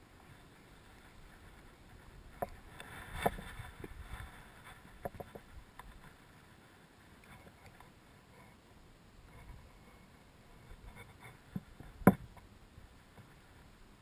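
Scattered clicks and knocks from handling a baitcasting rod and reel: a cluster about two to four seconds in, a few more soon after, and the loudest single knock near the end, over a quiet background.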